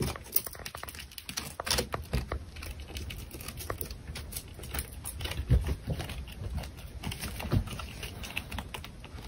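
Light, irregular clicking and scratching of a hamster's claws gripping a textured wall as it climbs, over a faint low rumble.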